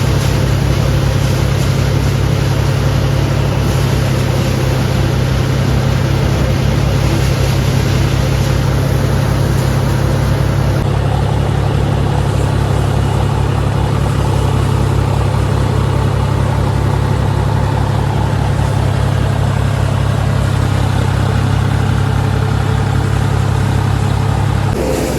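Tractor diesel engine running steadily under load with a heavy low drone. The sound shifts slightly partway through, and the low drone drops away right at the end.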